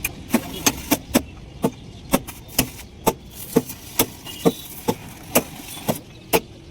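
Steady hammering on metal, about two blows a second, each blow ringing briefly.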